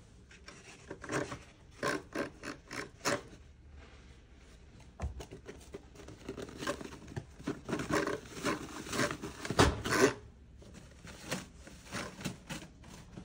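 Paper towel rustling and crinkling in irregular bursts as a gray squirrel tugs sheets off a wall-mounted roll and tears at them, with a couple of dull thumps.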